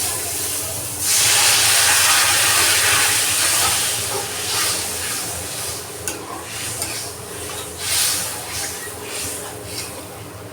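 Curry sizzling in a hot pan: a loud burst of hissing about a second in that dies down over a few seconds, then uneven sizzling with a few light clicks of stirring.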